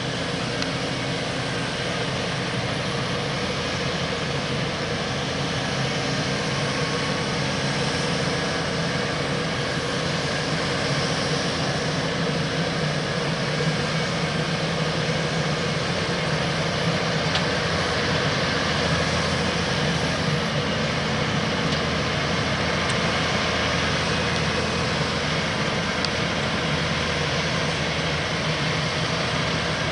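Claas Xerion 4200 Saddle Trac tractor running steadily under load while pulling a Horsch Tiger cultivator through the soil. The engine drone grows a little louder around the middle as the machine passes close.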